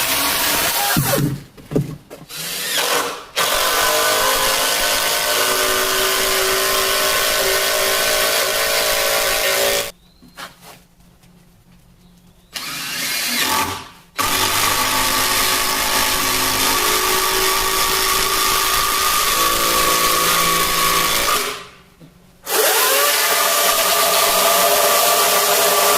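A power tool running steadily in several stretches, each cut off abruptly.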